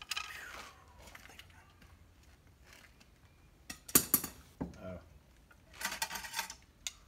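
Metal parts clinking and rattling in two short clusters, about four and six seconds in, with a single click near the end.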